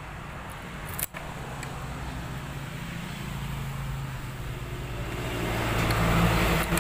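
A motor vehicle's engine running, drawing closer and getting louder over the last couple of seconds, with one short sharp click about a second in.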